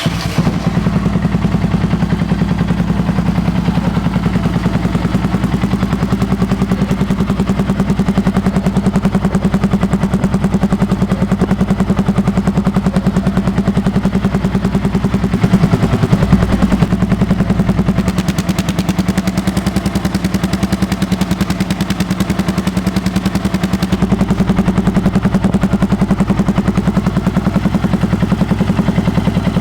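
Yamaha XT 660R's single-cylinder engine breathing through a Coyote aftermarket sport exhaust, starting and then idling loud with a fast, even thumping beat. It rises briefly in revs about halfway through, as if blipped, then settles back to idle.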